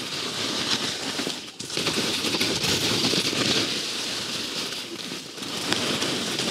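Skis scraping and chattering over hard, wind-crusted, bumpy snow during a fast off-piste descent, a continuous gritty rasp full of small clicks that eases briefly about a second and a half in and again near five seconds.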